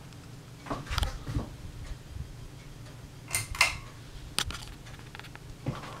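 Ceiling fan running at speed with a steady low motor hum, broken by several irregular sharp clicks and clinks.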